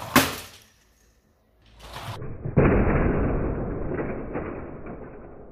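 Lego Technic Nissan Skyline R34 model crashing head-on into a board wall: a sharp smash of plastic parts. About two and a half seconds in, a second, duller crash sound starts abruptly and fades slowly over about three seconds.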